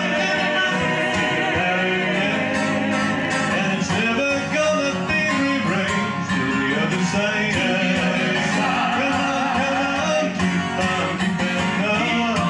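Live vocal group performing a song: an acoustic guitar strummed under several voices singing in close harmony.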